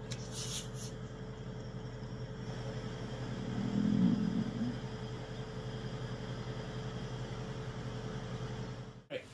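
Steady low background hum, with a brief low rumble swelling and fading about four seconds in.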